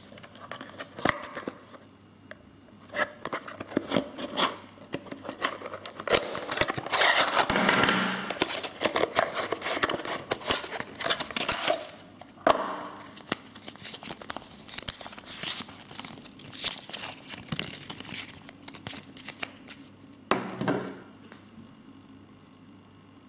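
Folding-knife packaging being opened and handled by hand: rustling, tearing and scraping with many small clicks and knocks, busiest in the middle, with two short bursts later on.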